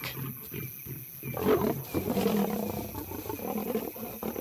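Lions calling aggressively during a confrontation between lionesses and a nomad male: harsh calls about a second and a half and two seconds in, with lower rumbling calls running on until near the end.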